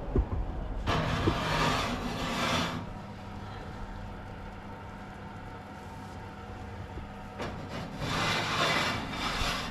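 Ceramic baking dishes handled with cloth oven mitts and slid onto the rack of an open kitchen oven: two spells of rustling and scraping, about a second in and again near the end, over a steady low hum.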